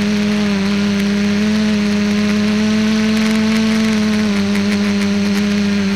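ETFD2 flying-disc multicopter's electric motors and propellers humming in flight, a steady whine that rises slightly in pitch about a second and a half in and drops back about four seconds in.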